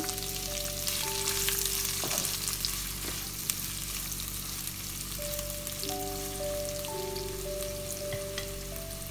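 Sliced onions sizzling as they hit hot oil in a non-stick kadai and are stirred with a spatula; the sizzle is strongest in the first few seconds and then settles.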